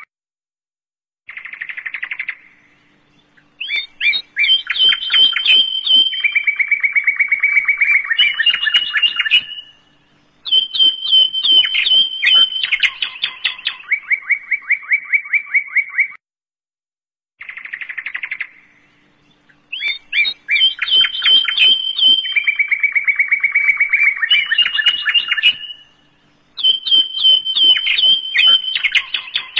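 Birdsong as a looped background track: runs of rapid, evenly repeated chirps and trills at changing pitches, broken by short silences. The same stretch of about fifteen seconds plays twice.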